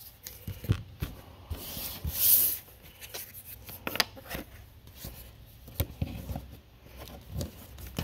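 Hands handling Magic: The Gathering cards and a foil booster pack on a table: scattered light taps and clicks, with a brief rustle about two seconds in.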